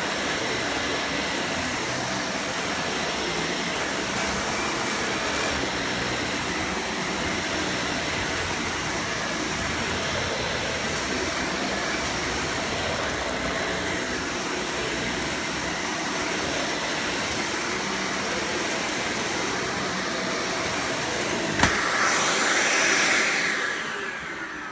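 Dyson Cinetic Big Ball Animal upright vacuum cleaner running steadily while vacuuming carpet. Near the end there is a click and a brief louder rush, then the motor winds down with a falling pitch.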